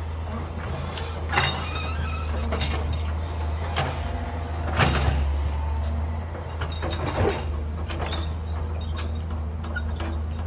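JCB tracked excavator clearing uprooted trees and brush: its diesel engine runs with a steady low drone, broken by about five sharp cracks and knocks, the loudest about halfway through.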